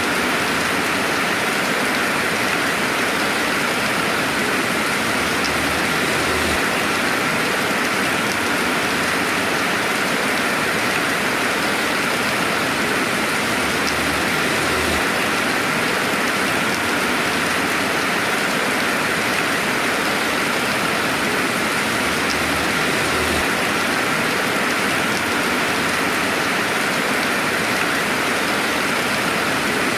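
Steady rainfall, a dense even hiss of many drops with a few separate drop ticks now and then, with no thunder.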